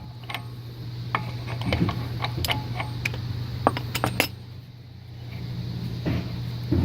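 Irregular metal clicks and clinks from a ratchet, socket and the loosened 32 mm front axle nut as it is worked off the axle shaft, over a steady low hum.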